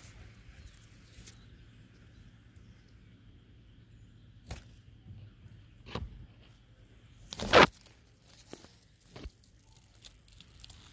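A few scattered crunches and crackles of dry leaf litter and twigs underfoot, the loudest and longest about seven and a half seconds in.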